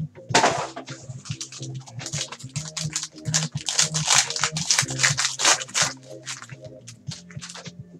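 Foil trading-card pack being torn open and its wrapper crinkled as the stack of football cards is pulled out, in many quick crackling rustles, over background music with a steady low bass line.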